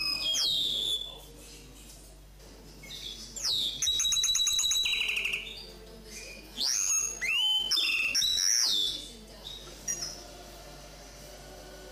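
Common linnet × canary hybrid singing in separate phrases: clear whistled glides, a fast rattling trill, then swooping notes, with short pauses between phrases.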